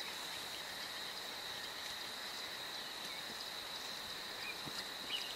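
Steady high-pitched drone of insects, with a couple of short faint chirps near the end.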